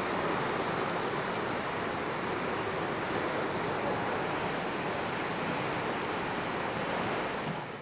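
Steady rushing noise of sea and wind, even throughout and fading out near the end.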